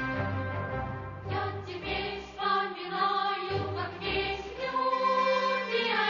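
Music with a choir singing over an instrumental accompaniment.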